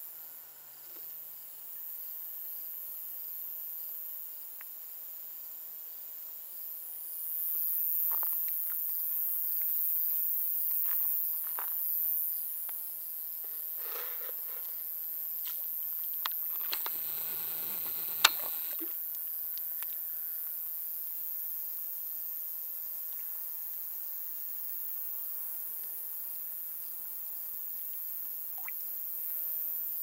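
Insects trilling in a steady high-pitched chorus. It is broken by a few faint clicks, a short burst of noise a little past halfway and one sharp click within it.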